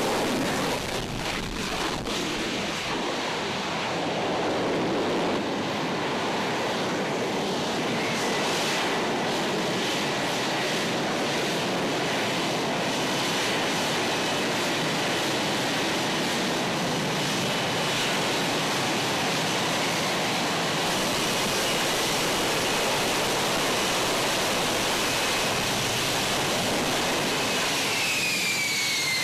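Steady engine noise from an F-35B fighter jet's single F135 turbofan, heard as a loud, even rush with a few faint high tones. Near the end a high whine falls in pitch.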